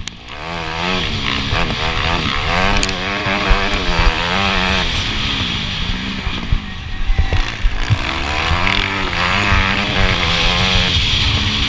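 Motocross bike engine heard from the bike itself, repeatedly revving up and dropping back as the throttle is worked and gears change around the track. Irregular low thumps run under it.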